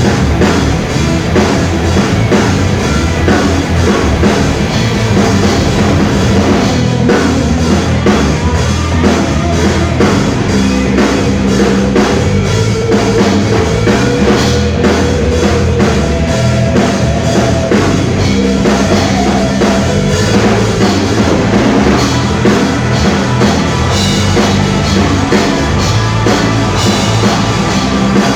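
Rock music from a band with a full drum kit keeping a steady beat, loud and continuous.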